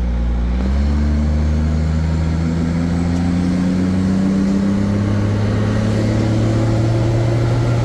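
Bus engine pulling away and accelerating, its low note climbing steadily in pitch as it picks up speed, heard from inside the vehicle.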